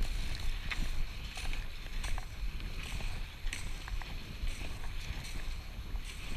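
Cross-country skis gliding and scraping over groomed snow on a descent: a steady hiss broken by short, irregular swishes of the skis, with a low wind rumble on the microphone.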